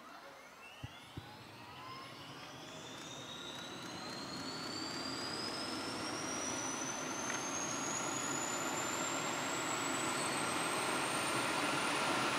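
Eurocopter H135's turboshaft engine spooling up on start: a whine that rises steadily in pitch and grows louder. There are two short clicks about a second in.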